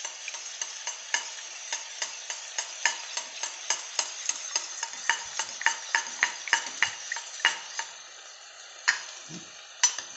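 Steel spoon beating eggs in a stainless steel bowl, clinking against the bowl about four times a second, stopping about eight seconds in with a couple of last clinks. Onions sizzle in oil underneath.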